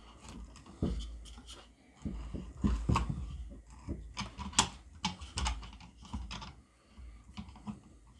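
Irregular clicking and scraping of a screw-tipped spade bit being turned by hand as it bores into wood, with occasional low knocks.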